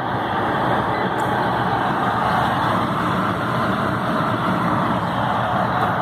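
Steady rush of air and motor noise from an electric furnace's blower running, with its heating elements energised and each drawing about 25 amps.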